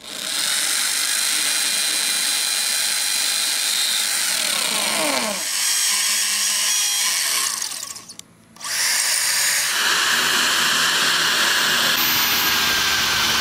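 Corded KPT impact drill boring into concrete and stone. About four seconds in, its whine slides down as the motor slows, then the drilling noise carries on. After a short break about eight seconds in, the drill runs again boring into steel.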